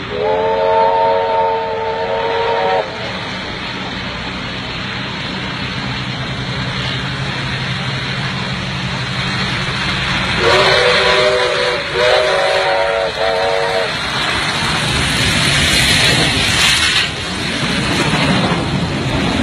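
Steam locomotives running side by side. A whistle sounds several notes at once in a long blast near the start, then two shorter blasts about ten seconds in, over the rumble and hiss of the engines, which grows loudest as the trains pass close by.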